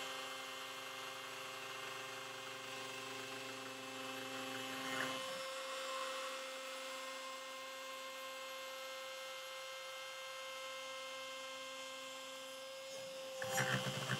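CNC router running a slab-flattening toolpath: the router spindle spins a surfacing bit while the gantry's motors move it, giving a steady hum of several pitched tones that shifts to a different pitch about five seconds in. A louder, rougher noise comes in near the end.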